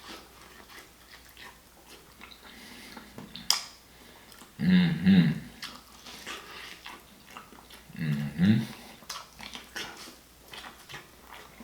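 Quiet eating sounds, faint chewing and small clicks, with one sharp click about three and a half seconds in. Two short hummed vocal sounds with a bending pitch, about five and eight and a half seconds in, are the loudest things heard.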